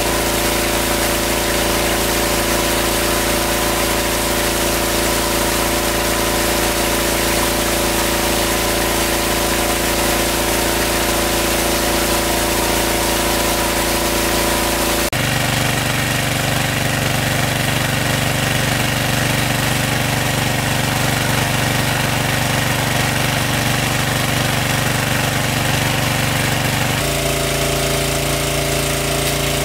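Engine-driven water pump running steadily with a constant drone. Its pitch and tone change abruptly about halfway through and again near the end.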